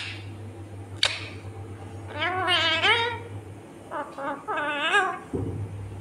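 Rose-ringed (Indian ringneck) parakeet vocalising: a quavering pitched call about two seconds in, then a few shorter calls that bend up and down near the end. Two sharp clicks come at the start and about a second in.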